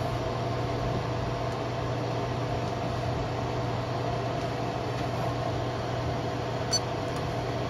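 Mingda Magician X2 3D printer running steadily during filament loading: an even hum with a constant low tone, the sound of its hotend fan and extruder at work. A short sharp click comes shortly before the end.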